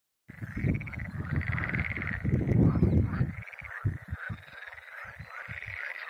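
A chorus of frogs croaking in many overlapping pulsing calls, with a few bird calls above it. Gusts of wind rumble on the microphone, loudest in the first half and coming and going after that.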